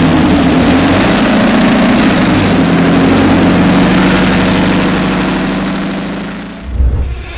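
Detroit Diesel 12V149T twin-turbocharged two-stroke V12 diesel running steadily. Near the end it eases off and gives way to a brief low rumble before the sound breaks off.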